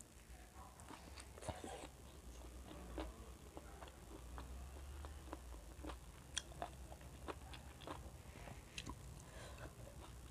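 Close-miked chewing, with irregular wet clicks and lip smacks, of a person eating chicken feet pickle and rice by hand. A steady low hum runs underneath.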